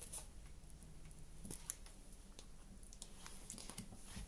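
Faint handling noise: a scattered series of small clicks and rustles, over a low steady room hum.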